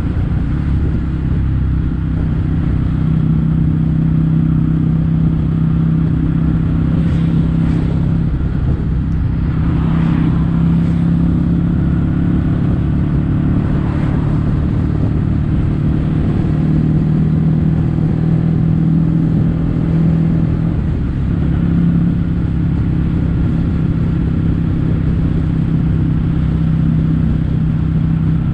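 Kawasaki W800 air-cooled parallel-twin engine running through Yamato stainless-steel Cabton-style silencers, holding a steady low exhaust note while cruising at an even speed.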